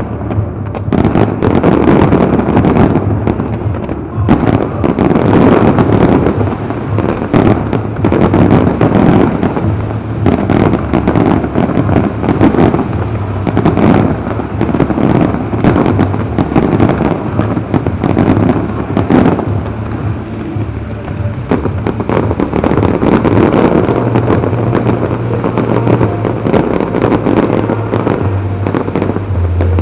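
Loud fireworks display in a continuous barrage: rapid, overlapping bangs of launching rockets and bursting shells with crackle, and no pause.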